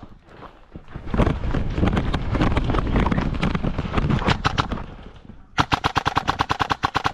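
Airsoft electric gun (AEG) firing on full auto: a long, loud, dense stretch of rapid shots in the middle, then an even burst of about ten shots a second near the end.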